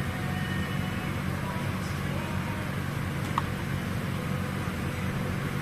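Steady low mechanical hum with a noisy haze over it, and a single short metallic click about three and a half seconds in.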